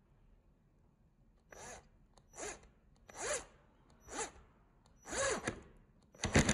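Cordless impact driver driving a wood screw through a cabinet hinge in short trigger pulls: six brief spins about a second apart, each motor whine rising and falling. The last, loudest burst near the end carries the start of the driver's staccato impact hammering as the screw seats.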